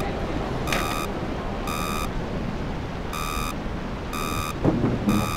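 Electronic warning beeps from a monitoring panel, a short high tone repeated about once a second, signalling a water-loss alert. A steady low hiss runs underneath, with a few soft knocks near the end.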